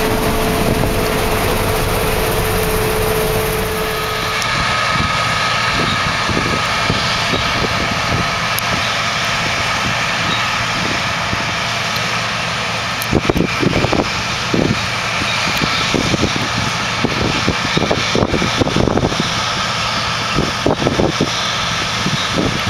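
Combine harvester working in soybeans, heard from inside the cab: a steady machine hum with a fan-like rush. About four seconds in, a low steady tone drops out and a few higher whines come in. From about thirteen seconds on there are scattered sharp ticks and knocks.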